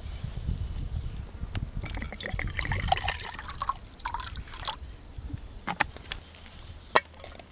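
Water trickling and spattering in a metal canteen cup on a small hobo stove, with a few sharp metallic clicks, the loudest about seven seconds in. A low wind rumble on the microphone runs underneath.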